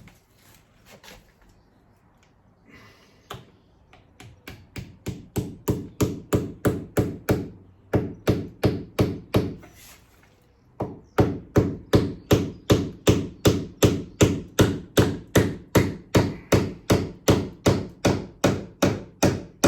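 A hammer driving a nail in at an angle to fix an insulated cavity closer: a few light taps, then a long run of sharp, even blows at about three a second, with a brief pause about ten seconds in.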